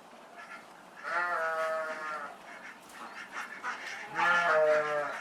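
Two drawn-out animal calls, each about a second long: one about a second in, and a louder one near the end.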